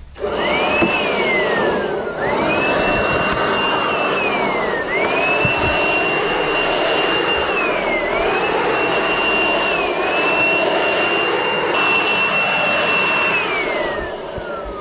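Handheld cordless electric leaf blower running, a rush of air under a high motor whine. The whine drops and climbs back up four times as the trigger is eased and squeezed, then falls away near the end as the motor spins down.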